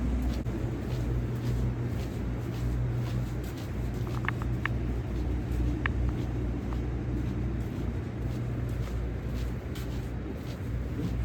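Steady low rumble of a car's engine and road noise as it drives, with a few faint clicks about four to six seconds in.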